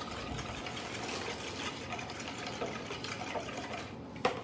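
Wire whisk beating a thin oil-and-vinegar dressing in a plastic mixing bowl: a steady, rapid scraping and clicking of the wires against the bowl, with one sharper tap near the end.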